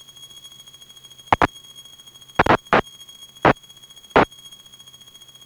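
Aircraft intercom line audio with a steady high electrical whine, broken by a run of short, loud crackling pops of static, some of them doubled, between about one and four seconds in.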